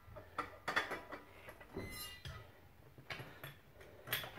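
Scattered light metallic clicks and knocks, with a short faint squeak near the middle, as a small jack is set under the front suspension's lower control arm.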